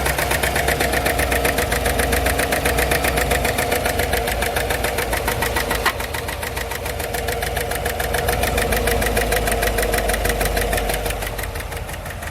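A Tahoe/Yukon engine idling with a fast, even ticking running through it, the ticking noise that comes with the P0300 random-misfire code. A single sharp click sounds about halfway through, after which the engine sound eases slightly.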